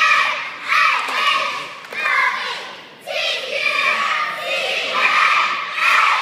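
A squad of young girls shouting a cheer in unison, in short rhythmic phrases, with a brief break about three seconds in.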